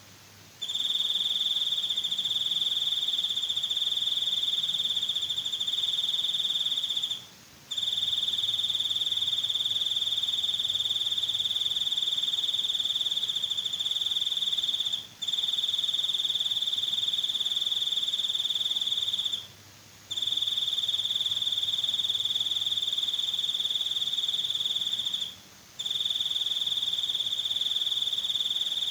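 Cricket trilling: one steady, high-pitched trill held for several seconds at a time, broken by short pauses every few seconds.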